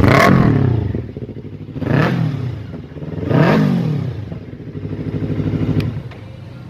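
Yamaha R25's parallel-twin engine blipped three times in quick succession, each rev rising and falling back, then settling into a steady idle that drops quieter near the end.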